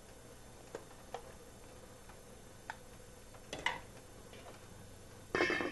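Light, separate clicks and taps of a spoon against a steel pot and a bowl as tomatoes are fished out of boiling water. There are a few single taps, then a louder clatter near the end.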